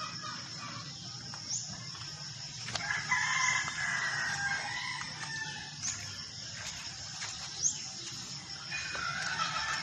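Rooster crowing: one long crow about three seconds in and another starting near the end. Short high chirps come every couple of seconds over a steady high tone.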